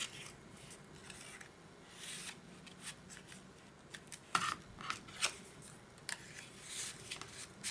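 Cardstock tags and cards being handled and slid into paper pockets: soft rustling and scraping of paper, with a few sharper rustles and taps about four to five and a half seconds in.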